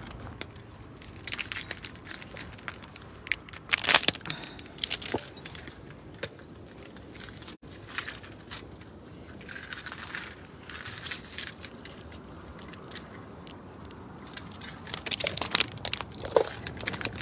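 Keys jangling in hand with rustling handling noise, in irregular bursts of clinks and crackles every few seconds.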